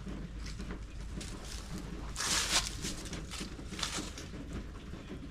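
Irregular scuffing and rustling noises over a steady low rumble, with a louder rush about two seconds in.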